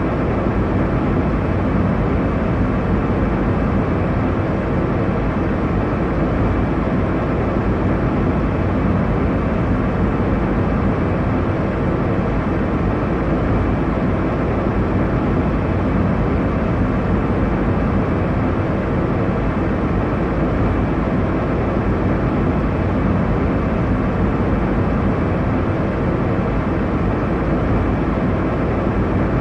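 Steady airliner cabin noise: a deep, even rush of engine and airflow with no changes.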